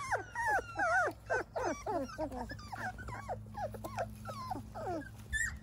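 Three-week-old yellow Labrador puppies whimpering and crying, a quick string of short, high, falling squeals, a few each second. The owner calls this typical of young puppies not yet sure of a new place.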